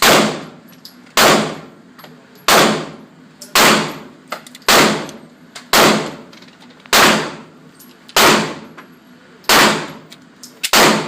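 Handgun fired in a steady string of about ten shots, a little over a second apart, each a loud sharp crack with a short decaying tail.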